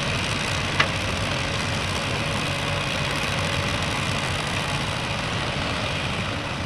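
Heavy mining machinery's diesel engine running steadily at low revs, with one short sharp click about a second in.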